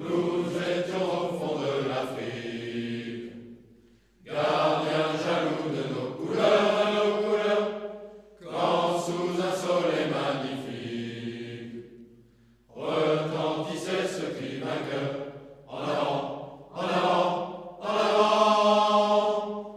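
Voices chanting in long sung phrases of about four seconds each, split by short breaks, the last few phrases shorter and quicker.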